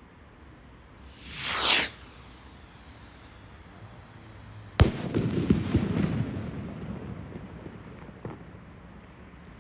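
Fireworks: a short whoosh falling in pitch about a second in, then a sharp bang just before the halfway point followed by crackling that dies away over a couple of seconds, and a smaller pop near the end.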